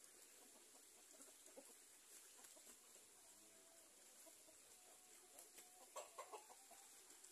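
Domestic chickens clucking faintly, with a cluster of short, sharper sounds about six seconds in.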